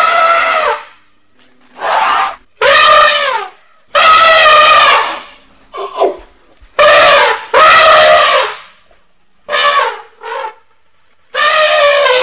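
A rapid series of loud elephant trumpeting calls, about ten in all, each brassy blast lasting under a second with short silent gaps between them. Each holds its pitch, then bends down at the end. The calls are presented as those of the extinct North African elephant.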